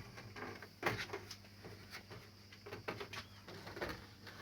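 Scattered plastic clicks and light knocks as parts of a split air-conditioner's indoor unit are handled and snapped into place during reassembly.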